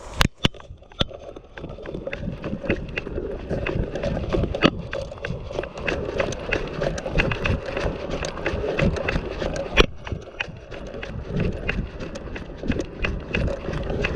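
Footsteps of a player running over ground, a quick irregular series of thumps and clicks with kit rattling along.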